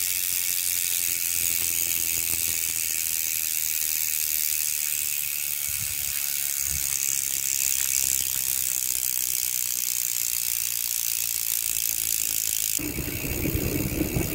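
Weapon Beast rear hub freewheeling, its five extended pawls ratcheting in a rapid, loud clicking buzz as the wheel coasts. About 13 s in it cuts abruptly to a lower rumble.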